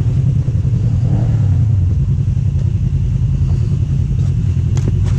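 Off-road vehicle's engine running steadily on a trail ride, with a few sharp clicks near the end.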